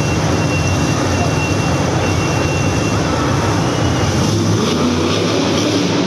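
Monster truck engine running, a loud steady drone with most of its weight low down.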